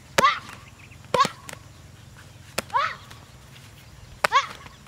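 Taekwondo kicks slapping a handheld paddle target, about four sharp smacks roughly a second apart. Each is met by a short shout whose pitch falls.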